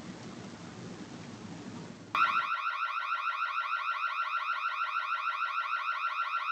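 Ring security camera's built-in siren switched on about two seconds in, sounding as a rapidly repeating rising electronic tone, set off remotely to scare off an intruder. Before it, a steady hiss of background noise.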